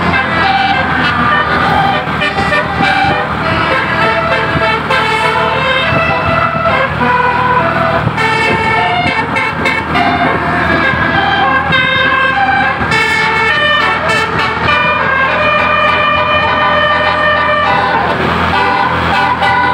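Bus's basuri musical air horn playing a melody of held notes that change pitch about every half second, with a steady low hum underneath.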